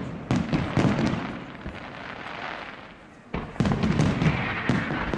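Fireworks display: aerial shells bursting in sharp bangs, in a cluster at first and then again after a short lull about three and a half seconds in, followed by crackling near the end.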